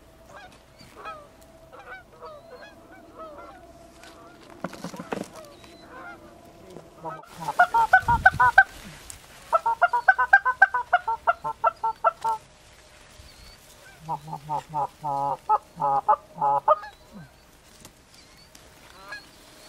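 Canada goose honking: faint scattered honks at first, then three loud runs of fast honks and clucks, about six or seven a second, starting roughly seven, ten and fourteen seconds in.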